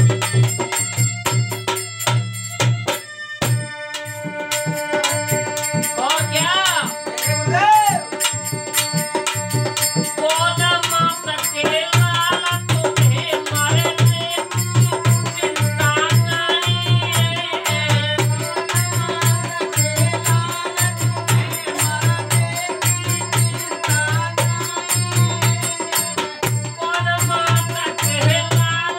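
Rajasthani folk Holi song played live: harmonium and a dholak drum keeping a steady beat, with jingling hand percussion. A man's singing comes in briefly about six seconds in and carries on from about ten seconds to the end.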